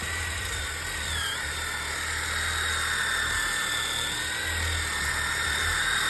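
Handheld electric power tool running under load as it smooths a high spot off a log wall: a steady high whine that wavers and dips slightly in pitch as the tool bites into the wood.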